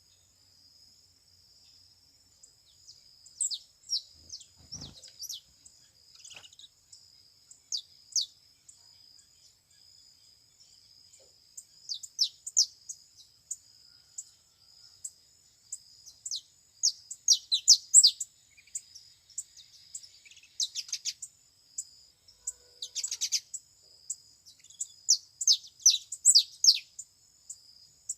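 Canaries chirping in quick clusters of short, high, downward-sweeping notes, busier in the second half, over a steady high-pitched insect drone. A brief low bump about five seconds in.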